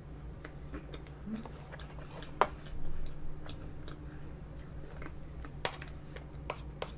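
Close-miked chewing of soft tiramisu, with scattered light clicks and scrapes of a metal spoon against the clear dessert cup. The sharpest click comes about two and a half seconds in.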